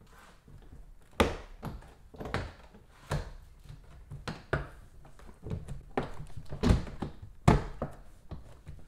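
Plastic door trim panel of a 5th-gen Toyota 4Runner front door being pushed and knocked into place, about a dozen sharp thunks at uneven intervals as its plastic retaining clips are pressed into the door.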